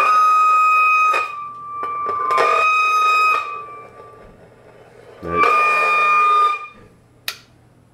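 Electric guitar played through a 1986 Marshall 4210 combo's normal channel: three sustained high notes, each struck and left to ring out, with a single sharp click near the end. The channel is sounding in the few seconds it works after warm-up, before a pop leaves it dead.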